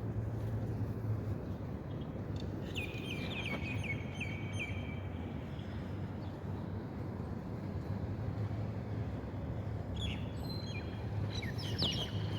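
Small birds chirping: two runs of quick, short, downward chirps, the second near the end, over a steady low background hum.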